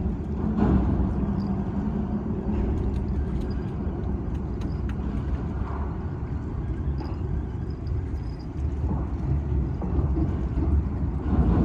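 Wind buffeting the microphone: a loud, uneven low rumble that swells and dips throughout.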